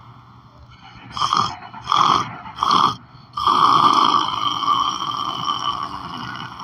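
A sleeping person snoring: three short snorts in quick succession, then one long drawn-out snore that slowly fades.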